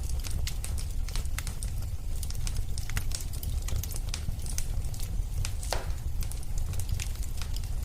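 Wood fire burning in a fireplace: a steady low rumble of the flames with irregular crackles and pops, one louder pop near the end.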